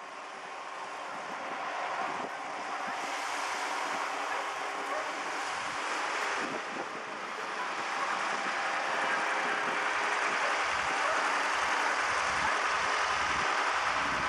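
Wind rushing over the microphone and surf washing on the beach, with the engine of a tractor hauling a fishing boat up the sand running steadily in the distance. The sound grows louder over the first half and stays up to the end.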